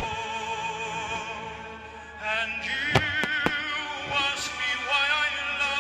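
Operatic singing over music, the voice wavering in a wide vibrato, with firework shells bursting over it: one bang at the start and three sharp bangs in quick succession about three seconds in, the first of these the loudest.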